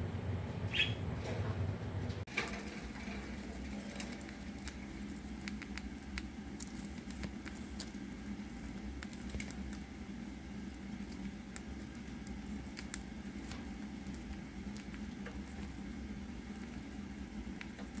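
Budgerigars feeding: scattered small clicks and taps of beaks pecking at seed and greens and feet shifting on newspaper. One short budgie chirp sounds about a second in.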